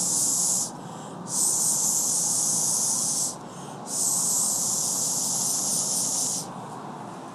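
Bark Art blow pen, a marker airbrushed by mouth, hissing as breath is blown through it to spray colour onto hair: one puff ending about half a second in, then two longer puffs of two seconds or more, with short gaps between.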